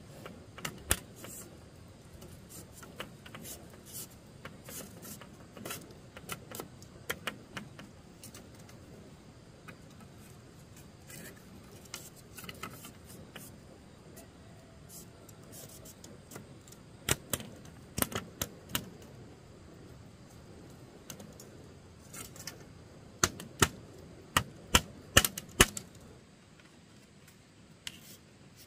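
Irregular sharp knocks and taps from hand building work on a wooden wall, with quieter handling and rustling between them. The loudest strikes come in quick runs a little past the middle and again near the end.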